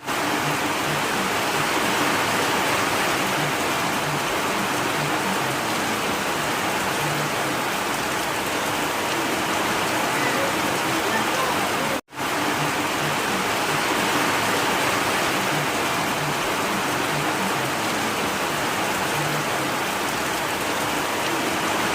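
Steady rain falling, an even hiss. The sound cuts out for a split second about twelve seconds in, then resumes unchanged.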